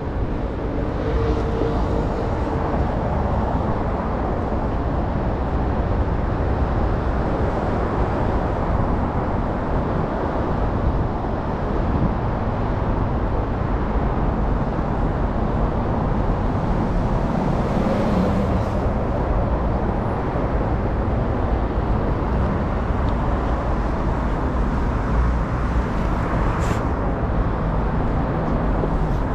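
Steady road traffic noise from a city street, with cars and trucks passing.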